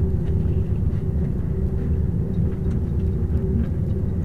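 Steady low rumble with a faint even hum inside an aerial tramway cabin as it travels up its cables.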